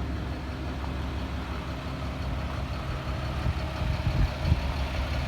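Caterpillar 3126 inline-six diesel of a boom truck idling steadily, with a few short knocks about four seconds in.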